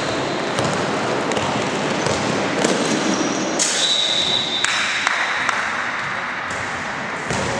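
Indoor basketball game sounds in a reverberant gym: the ball bouncing and sneakers on the court over a steady hubbub in the hall. A high steady whistle sounds for about a second some four seconds in, typical of a referee stopping play.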